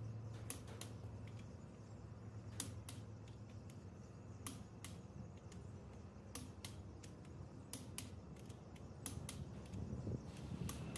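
Torque wrench ratcheting on connecting rod cap bolts: sharp metallic clicks, mostly in pairs, every second or two.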